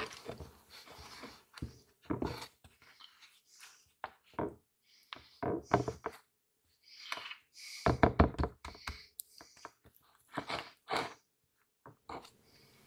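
Irregular knocks, taps and thuds of food and utensils being handled on a kitchen worktop, with a quick run of knocks about eight seconds in.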